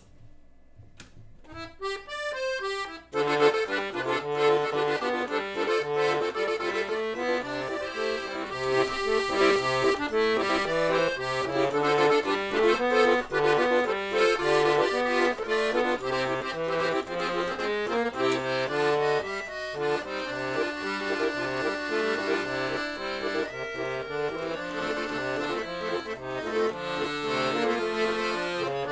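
Bellini 120-bass piano accordion, automated by a custom Decap MIDI mechanism, playing a tune by itself. A short rising run of notes gives way about three seconds in to full melody and chords over an alternating bass line.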